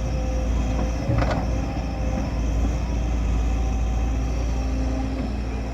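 Heavy diesel earth-moving machinery, a backhoe loader or dump truck engine, running steadily with a deep rumble. There is a brief clunk about a second in.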